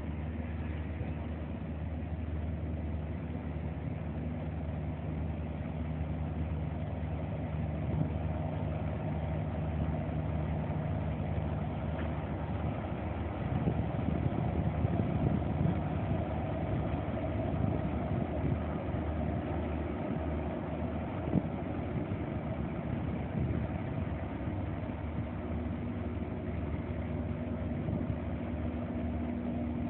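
Engines of the Flying Cat 5 high-speed catamaran ferry running with a steady low drone as it manoeuvres out of the harbour. About halfway through the drone turns rougher, and near the end a higher steady engine note comes in as the catamaran picks up speed.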